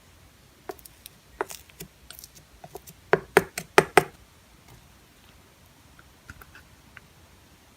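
A series of small clicks and taps, with a quick cluster of louder knocks about three to four seconds in.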